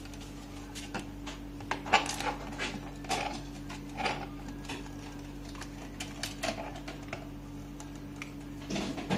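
Hard plastic body parts of a battery-operated ride-on toy motorcycle being handled and fitted together: scattered clicks and knocks, the loudest about two seconds in, over a steady background hum.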